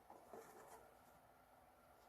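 Faint rustling and light scratchy handling sounds from packaging or the boots during the first second or so, then near silence.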